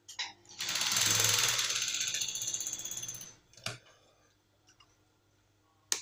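Industrial sewing machine stitching a short run of about three seconds, a fast mechanical rattle that fades out. It is followed by two sharp clicks.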